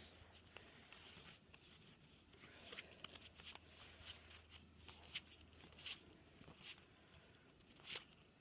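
Trading cards being slid one by one off a stack as a booster pack is looked through: faint short swishes about once a second.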